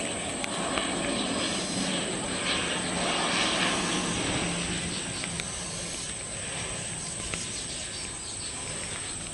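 ATR 72-600 turboprop on final approach, its two engines and propellers giving a steady drone that swells as it passes closest and then eases off while it descends to the runway.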